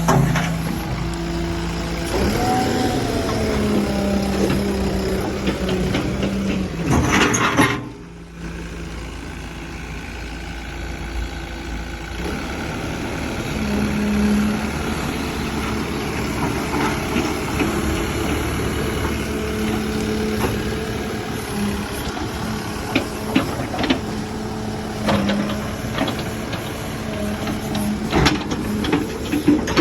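Backhoe loader's diesel engine running, with its pitch shifting now and then. About seven seconds in there is a brief loud rushing burst, then the level drops sharply. Sharp clicks and knocks come through in the last several seconds.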